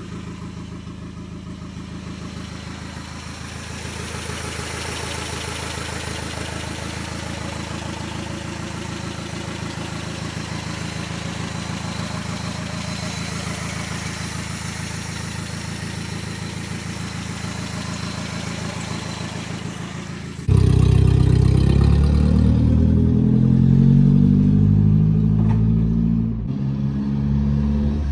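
Nissan 720 pickup's swapped Z24 four-cylinder engine, fed by a Weber 38 carburetor, idling steadily. About two thirds of the way through it cuts to the truck driving, much louder, the engine revving up and dropping back in steps as it pulls through the gears.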